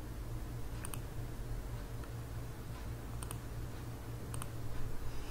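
A computer mouse clicking a few times, sharp single clicks spaced out about a second apart or more, over a steady low hum.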